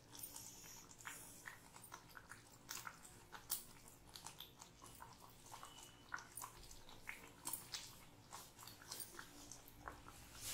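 Faint, scattered soft wet plops and clicks as battered fried egg halves (egg pakoras) are dropped one by one into thick curry gravy in a pan.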